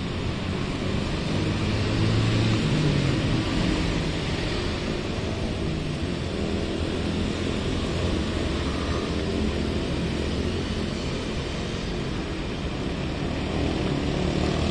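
Steady motor-traffic noise: low engine hum wavering under a broad rushing hiss, a little louder about two seconds in.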